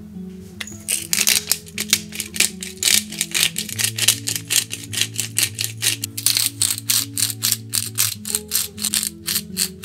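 Pepper mill grinding black pepper over a raw steak: a quick, even run of crackly crunches, about five a second, starting about a second in. Soft acoustic guitar music plays underneath.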